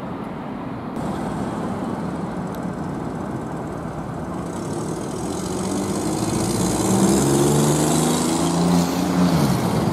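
City street traffic: a steady hum of cars, with one vehicle's engine growing louder from about halfway through and dropping in pitch as it passes near the end.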